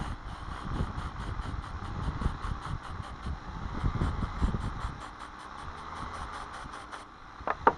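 A machine running with a rapid, even ticking of about five a second over low rumbling. The ticking stops about seven seconds in, and sharp knocks follow just before the end.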